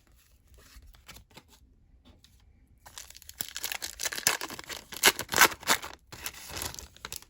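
A trading-card pack wrapper being torn open and crinkled, a loud crackling rip that lasts about four seconds. It follows a few seconds of light ticks from cards being handled.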